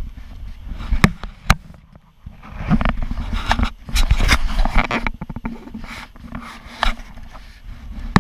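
Knocks and scraping rubs on a plastic kayak: two sharp knocks about a second in, then irregular rustling and scraping with a low rumble.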